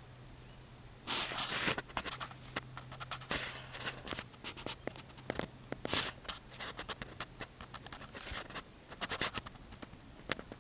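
Irregular close rustling and scraping with many sharp clicks, the longest burst about a second in, over a faint steady low hum.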